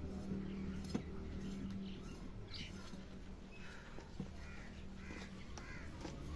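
Crows cawing repeatedly over a steady low hum, with a sharp knock about a second in and another a little after four seconds.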